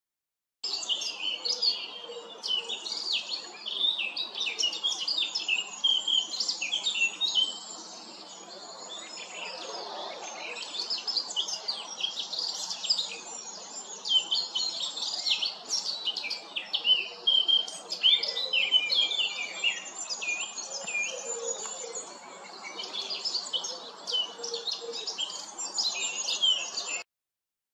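Male Eurasian blackcap singing: fast, varied warbling phrases of high notes following one another, with a short lull about a third of the way through.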